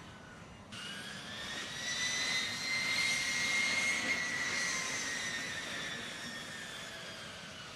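A-10 Thunderbolt II's twin TF34 turbofan engines, with their high-pitched whine, as the jet rolls past on the runway. The whine jumps in abruptly just under a second in, swells to its loudest midway, then slowly fades with a slight drop in pitch.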